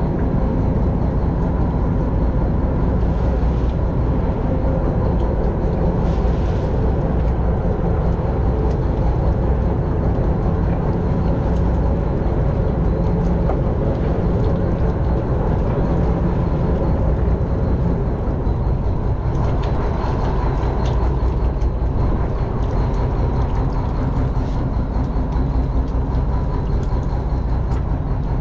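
Fishing boat's engine running steadily, a constant low drone that holds the same level throughout.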